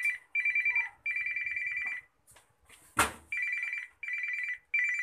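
Mobile phone ringing: a fast trilling ringtone on two close pitches, in short bursts with brief gaps and a pause of about a second in the middle. A single sharp knock about three seconds in is the loudest sound.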